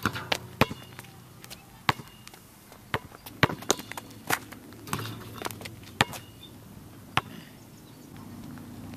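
Basketball play on an outdoor asphalt court: sharp single knocks at uneven intervals as the ball bounces on the pavement, starting with a dunk on the hoop's metal rim.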